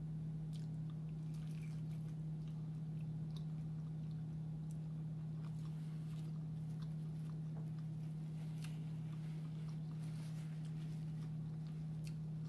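Close-miked chewing of a seafood egg roll, with scattered faint clicks and crunches, over a steady low hum.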